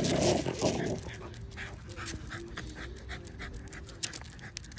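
French Bulldog panting rapidly, about three breaths a second, after a louder, rougher sound in the first second.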